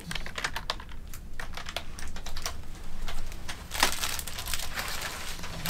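Wrapped candies being handled and rummaged through: crinkling plastic wrappers and many quick, irregular light clicks of candies knocking together.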